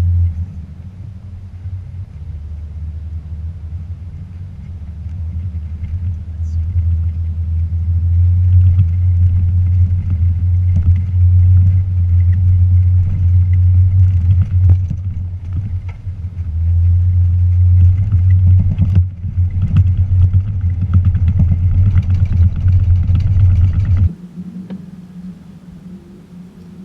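Toyota Tacoma pickup driving off-road: a steady low rumble of engine and running gear that builds a few seconds in and stays loud, then cuts off abruptly near the end, leaving a fainter steady hum.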